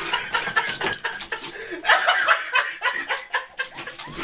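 A person chuckling and laughing in short bursts, over rustling and light clattering as a cat rummages among plastic bags and bottles.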